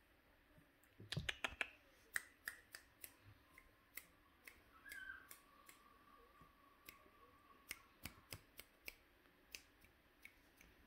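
Scattered sharp clicks and ticks, a quick cluster about a second in and then irregular single clicks, typical of kittens' claws catching on a leather sofa during play.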